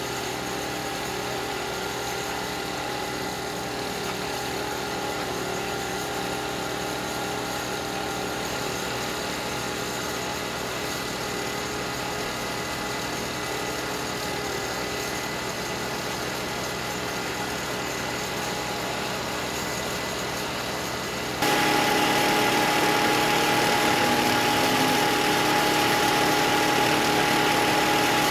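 Steady hum of idling engines with several steady tones over it. About three quarters of the way through it suddenly becomes louder, with a steady higher-pitched whine.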